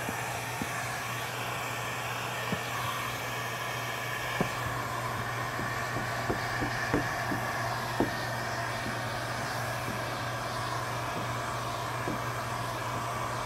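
Handheld electric heat gun blowing steadily, a low hum over an airy hiss, with a few faint clicks. It is heat-shrinking window tint film to the curvature of a car's rear glass.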